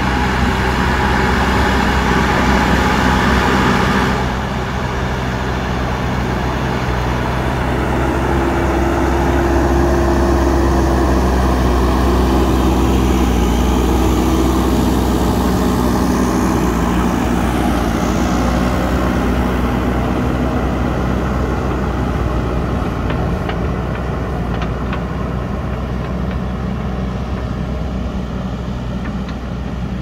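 JCB backhoe loader's diesel engine running under load as the machine pushes soil with its front bucket, its pitch rising and falling with the throttle.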